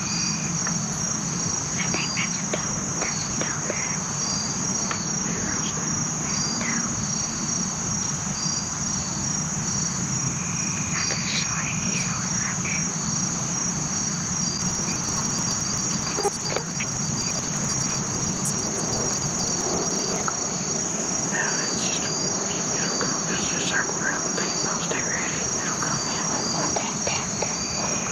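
Steady, unbroken high-pitched insect chorus in the woods, with a second, slower insect chirp repeating about once a second and scattered faint short calls.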